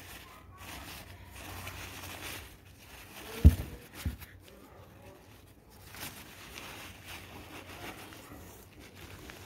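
Crumpled packing paper rustling and crinkling as hands unwrap a plant inside a cardboard box. Two dull thumps about half a second apart, a little over three seconds in, are the loudest sounds.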